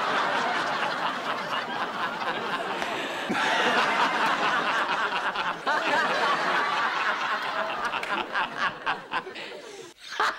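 A woman and a man laughing hard together, in loud open laughs, broken by abrupt edits about three and six seconds in. The laughter turns into shorter, choppier bursts near the end.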